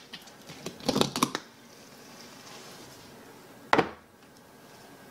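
Hydrogen water bottle being handled: a short run of clicks and scrapes about a second in as its top is twisted off, then one sharp knock a little before four seconds in as the bottle is set down on the shelf.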